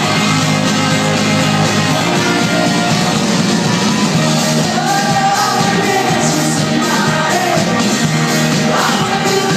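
Live indie rock band playing loudly, with sung vocals over guitars and drums.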